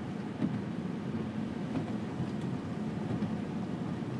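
Steady low road and engine noise inside a car's cabin while driving on a snow-covered road, with a few faint ticks here and there.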